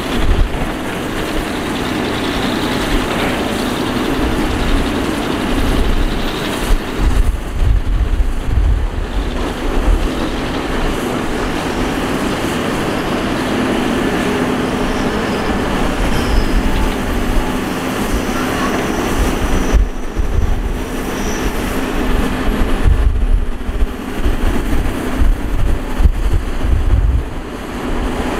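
Matador Shantui ME315 excavator's diesel engine and hydraulics working as it digs and swings loads, a steady hum under heavy low rumbling that swells and fades.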